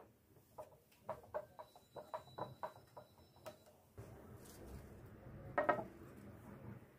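A quick run of light taps and clinks, about three a second, then a low steady rush with one louder clatter toward the end.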